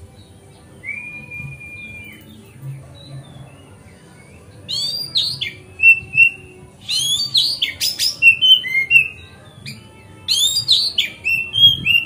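Oriental magpie-robin (kacer) singing: one long, even whistled note about a second in, then three loud bursts of rapid, sweeping, varied notes from about four seconds on.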